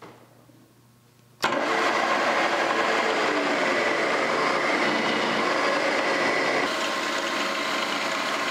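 Drilling machine starting up about a second and a half in, then running steadily with a whine as a 5/8-inch twist drill bores into a forged steel spring hanger. The sound is slightly quieter near the end.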